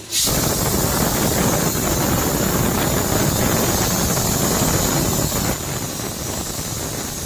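Pressure cooker whistle going off: a loud, steady hiss of steam escaping under pressure, starting suddenly and easing slightly about five and a half seconds in.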